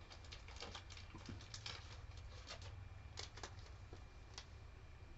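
Faint, irregular rustling and light clicks of a trading card being handled and slid into a plastic protective sleeve.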